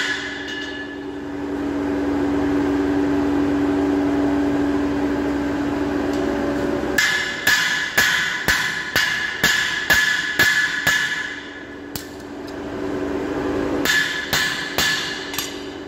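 Hand hammer striking a hot metal rod on an anvil to forge it to a 10 mm square section: runs of sharp ringing blows, about two to three a second, in the second half. Before the blows, a steady machine hum with a clear low tone stops abruptly.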